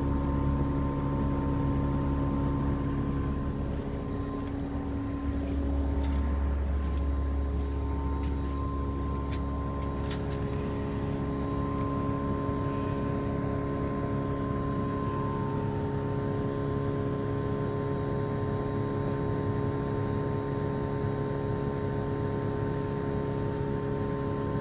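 LG Dual Inverter split air conditioner's compressor running with a loud, high-pitched whine: several steady tones over a low hum. It is an abnormal noise that has appeared after three months of use, sounding as if the compressor were speeding up, while the unit still blows cold air.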